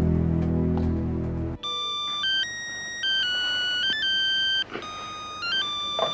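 Low, heavy trailer music cuts off about a second and a half in. A mobile phone's electronic ringtone follows, a beeping melody of stepped single notes in short phrases.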